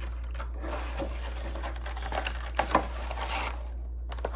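Packaging being handled: a stretch of rustling with several sharp clicks and taps, the loudest two about two and a half seconds in, over a steady low hum.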